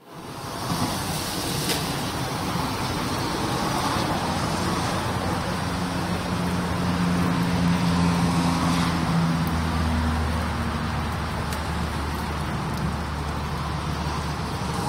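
Steady rain and traffic noise on a wet road, with a vehicle's engine hum in the middle and a deeper low drone setting in about two-thirds of the way through.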